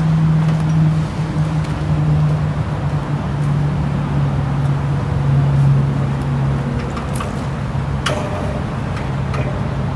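Mack RD688S roll-off truck's diesel engine idling steadily. A sharp clunk about eight seconds in comes as the tilt hood is swung open.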